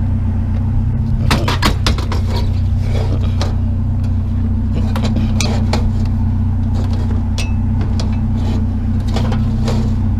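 Vehicle engine idling steadily, with scattered short knocks and rattles as a chair and scrap are shifted around in the vehicle.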